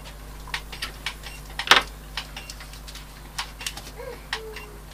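Irregular small clicks and taps, with one louder click about two seconds in, from a small screwdriver on the board's trimmer potentiometer and fingers handling the little LED circuit board on a cutting mat.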